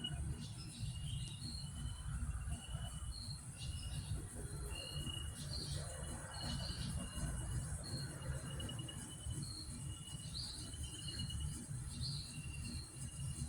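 Outdoor chorus of short chirps and trills from crickets and birds. They repeat about once a second at two alternating pitches, over a steady high hiss and a low, uneven rumble.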